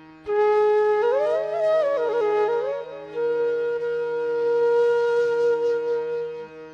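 Background music: a wind-instrument melody comes in just after the start with quick ornamented turns up and down, then holds one long note, over a steady low drone.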